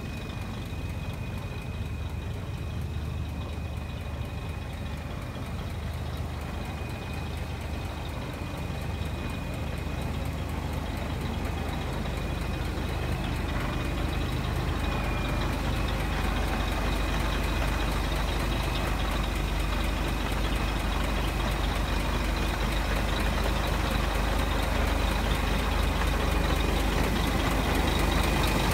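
Scania R480 truck's diesel engine idling steadily, a low even rumble with a thin high whine over it, slowly growing louder toward the end.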